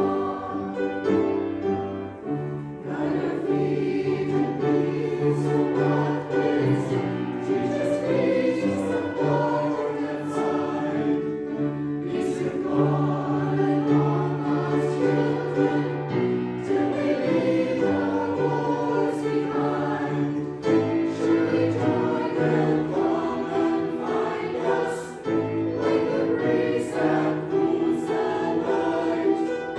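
Church choir singing a hymn, its voices held together in sustained chords that change every second or two.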